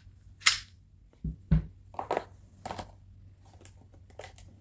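A few sharp metallic clicks and a dull knock from a Taurus G3c 9mm pistol being handled and checked clear, with fainter ticks near the end.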